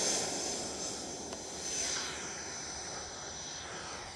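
Whine and rush of a radio-controlled Freewing F-16's 90 mm electric ducted fan at high power, fading steadily as the jet moves away.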